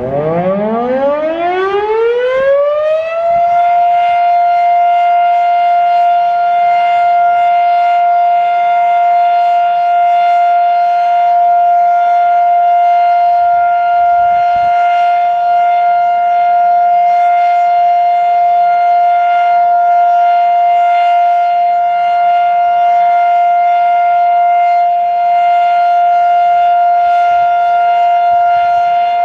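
Federal Electric Fedelcode Model 7 electromechanical tornado siren winding up, its pitch rising for about three seconds, then holding one steady, loud tone: the alert signal.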